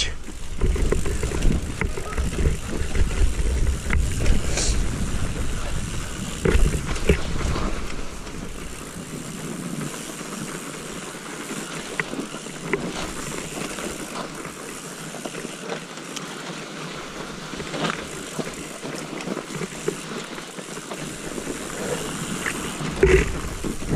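Mountain bike descending through fresh snow: tyres hissing and crunching in the snow with scattered knocks and rattles from the bike. A heavy low rumble for the first eight seconds or so, then quieter.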